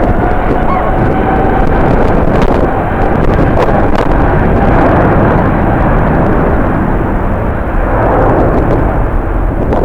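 Jet airliner's engines passing close by: a loud, steady rush, with a faint whine that rises just before and then holds.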